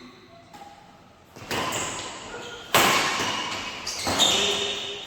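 Badminton rackets striking the shuttlecock during a rally: three sharp hits about a second and a half apart, each echoing in a large hall.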